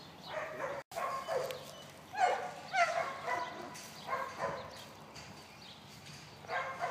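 A dog giving about half a dozen short, high yips, with a quiet stretch shortly before the end.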